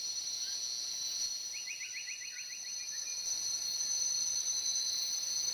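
Steady high-pitched drone of forest insects, with a brief rapid run of about ten short notes from a bird a couple of seconds in.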